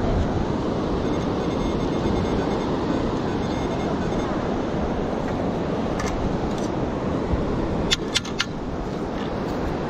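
Steady wash of beach surf and wind on the microphone, with a faint, broken metal-detector tone in the first few seconds and a few sharp clicks about eight seconds in.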